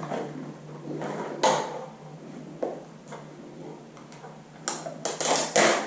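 Handling noise from parts and packaging of a metal detector being unboxed and assembled: scattered clicks and knocks, then a burst of rustling near the end.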